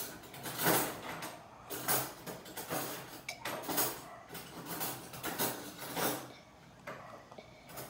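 A child drinking steadily from a mug, with a noisy gulp or breath roughly once a second.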